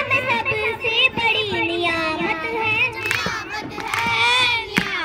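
Children singing together, with long held notes.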